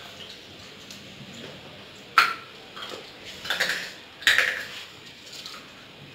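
Two sharp clinks of hard objects, about two seconds in and again about four seconds in, with fainter clatter between them.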